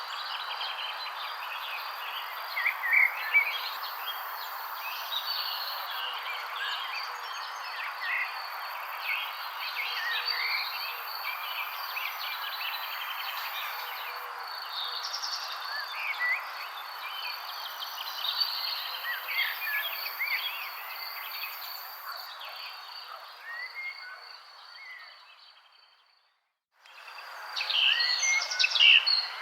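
Many songbirds chirping and calling over a steady high insect trill and a constant hiss. About three-quarters of the way through it all fades out to silence for a moment, then fades back in with louder chirping.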